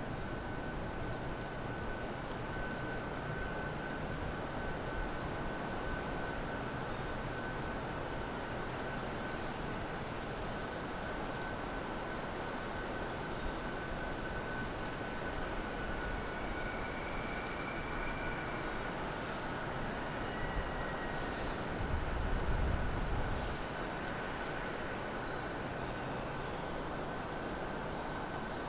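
Quiet woodland ambience with short high chirps repeating about twice a second over a steady background hiss, and a faint steady high tone. A brief low rumble comes about two-thirds of the way in.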